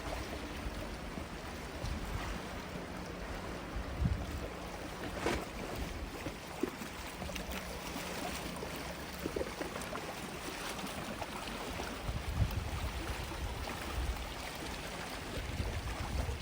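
Gentle sea waves washing onto a sandy beach: a steady hiss with a low rumble underneath and a few faint clicks.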